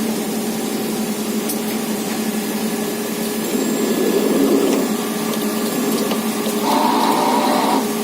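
1996 Wood-Mizer LT40 Super Hydraulic sawmill running with a steady mechanical hum, growing louder for a moment about four seconds in and again near the end.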